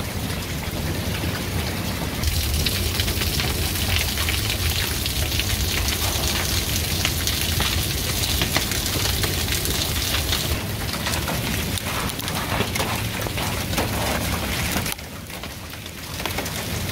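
Hail pelting down hard, a dense patter of many small icy ticks striking the ground and walkway. It briefly drops away about two seconds before the end, then picks up again.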